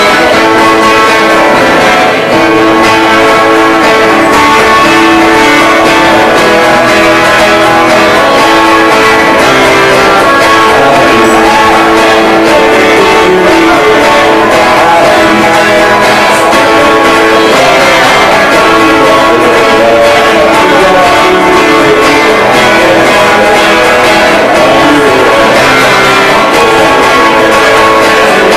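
A band playing a song live, with guitar prominent, loud and unbroken throughout.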